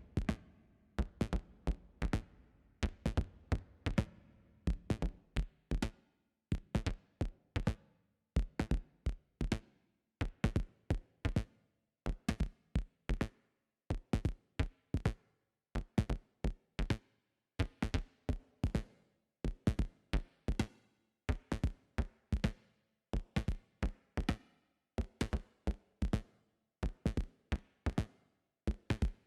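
Synthesized electronic percussion from the Surge software synthesizer: a looping drum-machine-style pattern of short, sharp hits, several a second, each decaying quickly.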